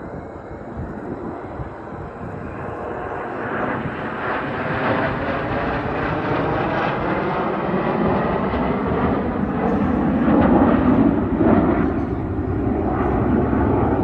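Jet noise from a formation of BAE Hawk T1 jets, each with a single Rolls-Royce Turbomeca Adour turbofan, flying a display pass. It builds steadily from a few seconds in and is loudest near the end.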